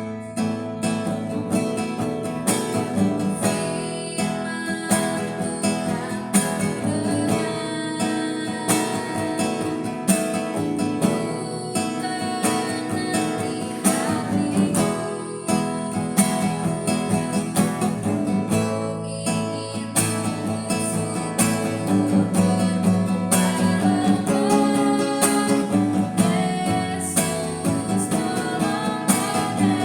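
Music led by a strummed acoustic guitar, played steadily.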